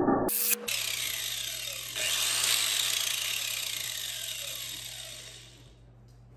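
Angle grinder switched on with a sudden start, running at speed with a high whine, then winding down after switch-off, its whine falling in pitch and fading out over about three seconds.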